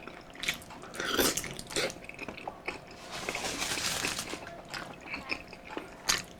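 Close-up eating sounds: a person chewing gelatinous beef skin from balbacua stew, with irregular wet smacks and clicks.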